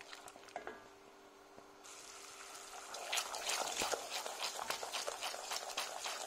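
Sugar-and-water syrup boiling hard in a stainless steel pot as it is stirred with a wooden spoon. The bursting bubbles make a dense crackle that grows louder about three seconds in. This is the syrup cooking down toward caramel, still clear and not yet coloured.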